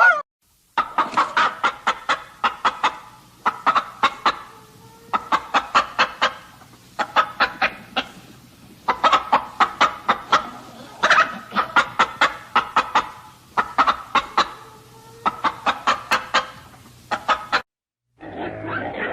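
Chickens clucking in repeated bursts of quick, sharp clucks, each burst a second or two long. The clucking breaks off shortly before the end, and a different animal sound starts.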